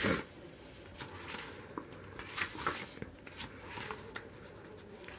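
Paper pages of a bound planner being turned and handled: several faint paper rustles.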